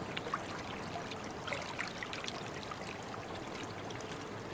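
River water trickling and lapping gently along a bank of branches and reeds, with small scattered drips.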